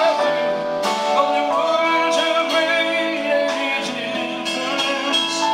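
Live band performing a slow rock ballad: a male voice sings over electric guitar, keyboards and drums.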